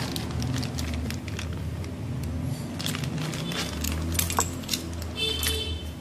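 Clear plastic zip-lock bag crinkling and rustling as rolls of foam handlebar tape are handled and pulled out of it, with a brief squeak near the end.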